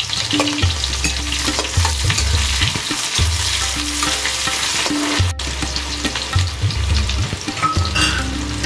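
Chopped onion frying in hot oil with crackled cumin seeds and a bay leaf in a kadhai, sizzling and crackling steadily as it is stirred.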